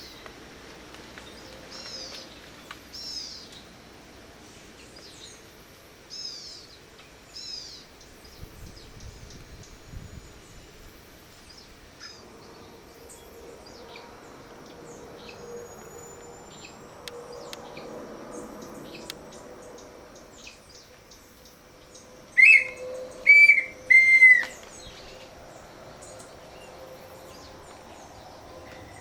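Pé-vermelho birds calling in answer to a hand-blown bird-call whistle (pio). In the first eight seconds there are four faint, high, falling notes and some scattered chirps. About 22 seconds in come three loud whistled notes, over a faint hum of insects.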